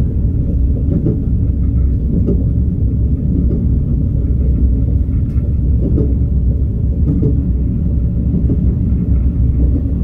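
Steady low rumble heard inside the passenger cabin of a KTX-Sancheon train running along the track, with faint knocks now and then.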